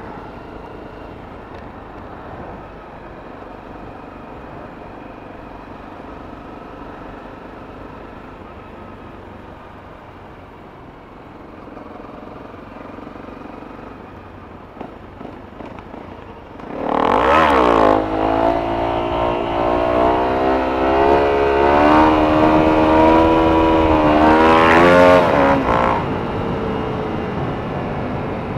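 Honda CRF250L's single-cylinder engine cruising steadily with road noise, then revving up sharply about 17 seconds in and pulling hard for several seconds before easing off near the end.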